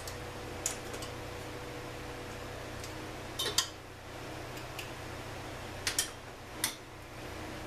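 Sharp metal clicks and clinks of hand tools and small-engine parts being handled on a workbench, about half a dozen, the loudest a short rattle about halfway through, over a steady hum.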